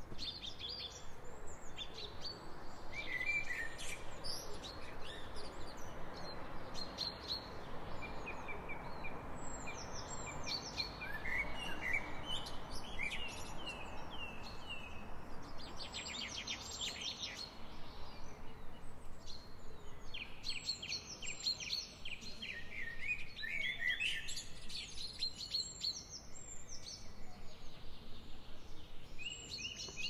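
Several songbirds singing at once in spring woodland, a mix of chirps, short falling whistled notes and fast trills, over a steady background hiss.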